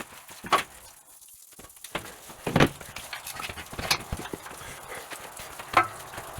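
Scattered knocks and taps, four louder ones a second or two apart with smaller clicks between, from hands-on work on a CNC plasma table while it is being leveled.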